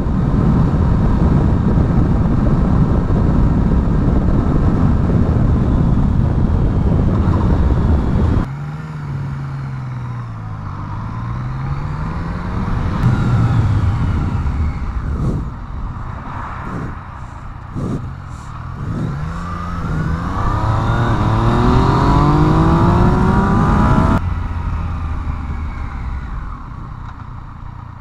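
Yamaha FZ-09's inline-triple engine revving and accelerating through the gears, its pitch climbing and dropping repeatedly. It follows a steady loud rush that cuts off abruptly about eight seconds in.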